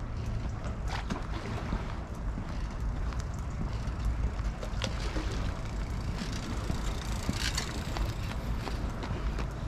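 Outdoor ambience: a steady low rumble with an even hiss, broken by a few faint clicks.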